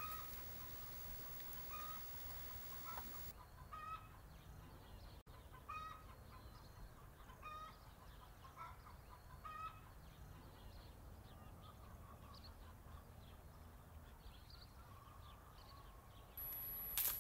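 Chickens clucking faintly: short calls every half second to a second that thin out after about ten seconds.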